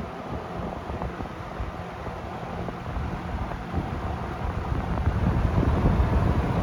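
Vintage Penncrest 100 metal-bladed box fan running, a steady whoosh of moving air over a low motor hum, growing louder about five seconds in.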